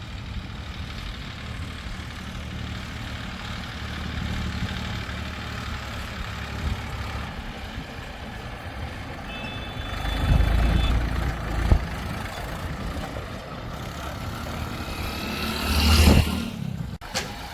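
Heavy diesel machinery engine running steadily, with a loud low swell about ten seconds in and another near the end, and a sharp knock in between.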